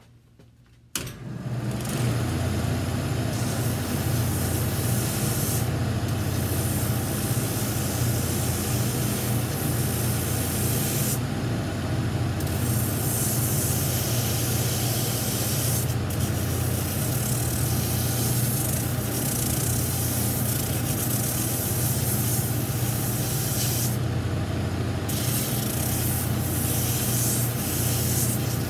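A shoe finishing machine starts up about a second in and runs steadily, a low motor hum under a loud hiss that swells and fades as the edges of a new rubber outsole are sanded down.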